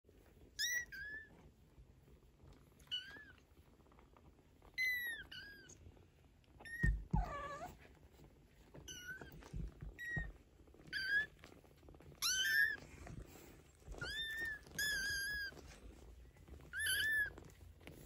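Maine Coon kittens about two weeks old mewing: about a dozen short, high-pitched cries scattered through the stretch, with a lower, dipping call about seven seconds in. A few soft low thumps sound around seven and ten seconds.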